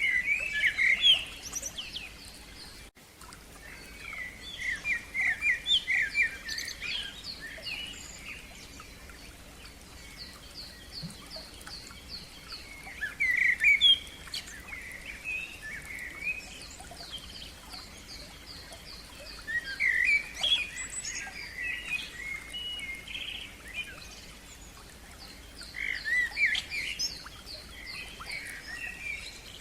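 Songbirds singing in phrases a few seconds apart, with quick runs of repeated high notes between fuller warbling bursts.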